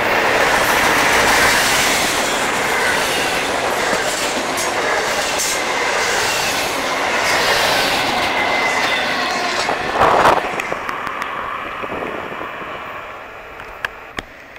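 Double-stack intermodal freight train of well cars rolling past at close range: steady wheel-on-rail rumble and clatter with a faint squeal of wheels, a loud clank about ten seconds in, and the sound growing quieter over the last couple of seconds.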